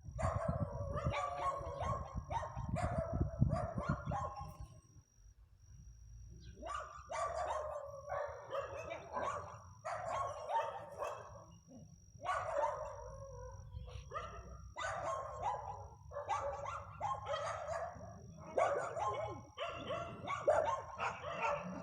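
Several dogs barking and baying together in a repeated chorus of short, pitched calls, a hunting hound's deep bay among them. The calls pause for a couple of seconds about five seconds in.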